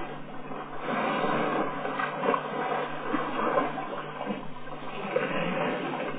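Elephants splashing and sloshing water as they wade and drink, with a steady low hum underneath.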